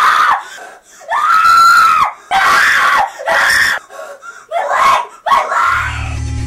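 A child screaming again and again in short shrill screams, one of them held longer about a second in. Near the end a low droning music tone comes in.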